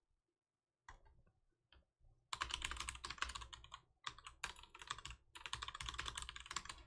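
Typing on a computer keyboard: a few scattered key clicks, then from about two seconds in a run of fast typing that continues with two brief pauses.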